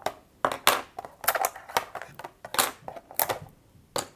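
3D-printed plastic parts popping off a flexed Prusa steel print sheet and being set down on a desk: about a dozen sharp, irregular plastic clicks and snaps.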